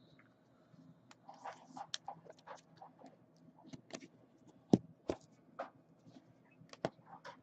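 Baseball trading cards being handled and sorted on a table: a scatter of light clicks, scrapes and taps, with one sharper tap a little past halfway.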